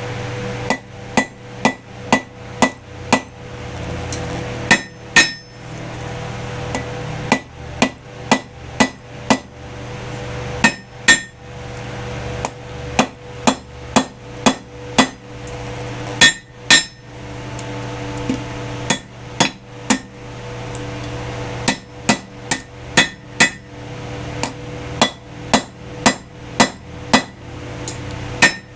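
Blacksmith's hand hammer striking hot rebar steel on an anvil while shaping the pendant's hammer head, in runs of quick blows about two a second with short pauses between runs. Each strike rings briefly, over a steady hum.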